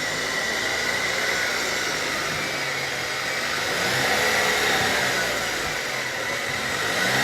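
Cadillac's GM 10-speed automatic transmission whining over the running car, a steady high-pitched tone: the known front-cover gear whine of this gearbox, here at just over 80,000 km.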